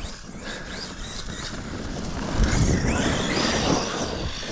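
Radio-controlled car driving: its brushless electric motor whines and its tyres run on the ground, swelling louder for about a second and a half around the middle as it passes close, then falling away.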